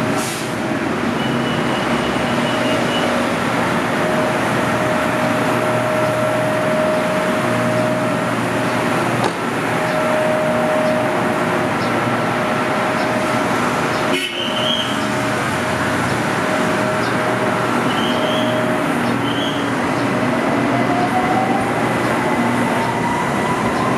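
BTS Skytrain electric train at an elevated platform: a steady hum with held tones, and about four seconds from the end a rising electric motor whine as a train starts to move off.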